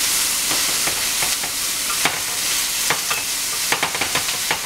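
Asparagus pieces sizzling as they sauté in a stainless steel frying pan. A utensil stirring them makes irregular clicks and scrapes against the pan.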